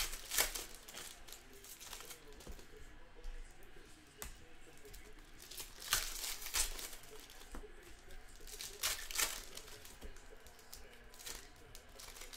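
Basketball card pack wrappers being torn open and crinkled, with cards being handled. The crinkling comes in several sharp bursts: just after the start, about six seconds in, and about nine seconds in.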